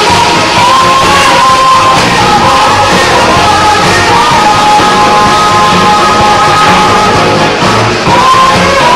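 Loud music with singing, the melody carried in long held notes over a full band mix.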